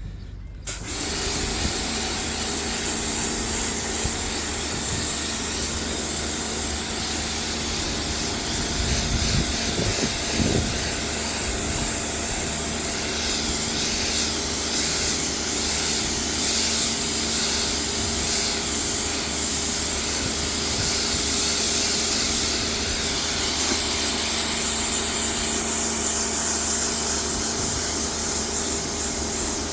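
Pressure washer spraying water onto carpet to rinse off degreaser. It gives a steady hiss of spray over a steady machine hum, starting about a second in.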